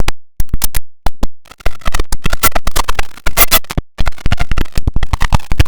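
IBM OS/2 Warp 3 shutdown sound chopped into rapid stuttering fragments: many very short clipped snippets a second, each cut off abruptly, with brief gaps, giving a glitchy scratching stutter.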